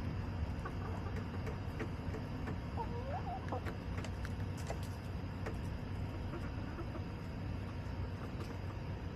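Backyard hens clucking a few short times about three seconds in, over a steady low background hum, with a scattering of light clicks just after.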